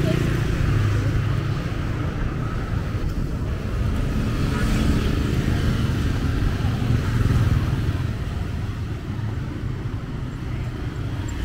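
Street traffic of motor scooters and cars passing close by, a steady low engine rumble.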